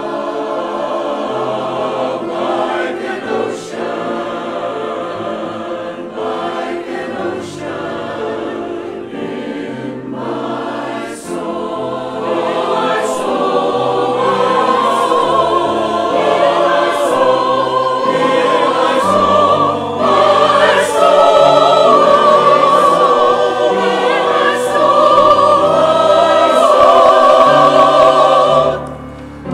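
Church choir of mixed men's and women's voices singing, swelling louder from about the middle, with a brief break between phrases just before the end.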